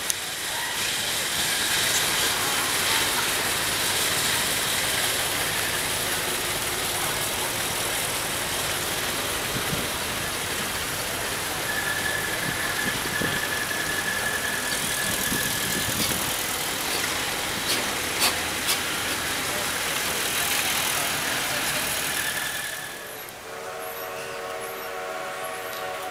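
Steady hiss of the 1912 Stanley Steamer Mountain Wagon's steam plant and burner, with a few clicks. Near the end the hiss gives way to a quieter steady chord of tones.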